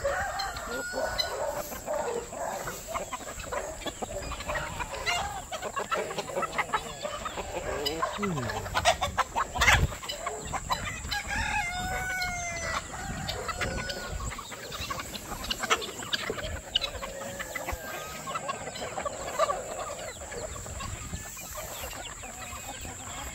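A flock of free-range chickens clucking, with a rooster crowing about twelve seconds in. A single sharp knock sounds near the middle.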